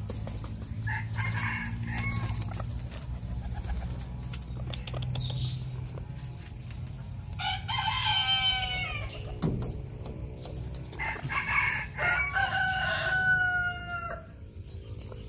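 A rooster crowing twice, once about halfway through and again near the end, each a long drawn-out call; a low steady rumble lies underneath.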